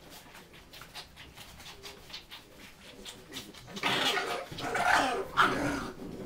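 Bull terrier puppies play-fighting: faint scuffling at first, then, a little past halfway, a run of puppy yips and growls that are the loudest part.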